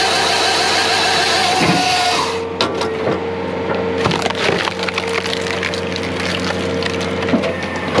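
Saw bar of a Halverson skid-steer firewood processor cutting through a log, cutting off sharply about two seconds in. The cut round then knocks into the splitter and is forced through the wedge, with a long run of wood cracking and splintering. Under it all is the steady drone of the John Deere 317G compact track loader's engine and hydraulics.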